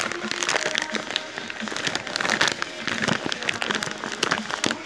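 Clear plastic bag crinkling as it is handled: many quick, irregular crackles.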